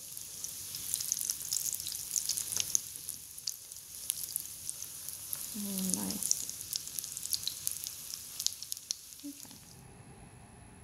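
Egg-battered zucchini slices sizzling in shallow oil on a nonstick griddle, with a steady crackle of small pops from the frying batter. The sizzle cuts off suddenly near the end.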